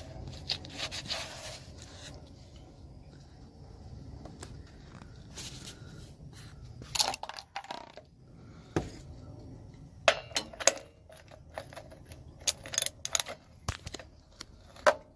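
Irregular metallic clicks and clanks of a socket wrench working on the rusted, seized anode rod fitting on top of a gas water heater, with a burst of quick clinks in the last few seconds. The rusted fitting will not turn.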